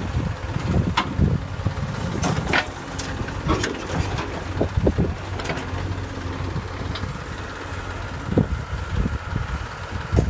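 JCB 3DX backhoe loader's diesel engine running steadily under load, with repeated sharp knocks and clatter from its bucket working the soil and earth dropping into a steel tractor trolley, bunched in the first half.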